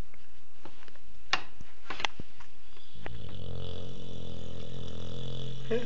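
Dog snoring: one long drawn-out snore starting about three seconds in, after a couple of soft clicks.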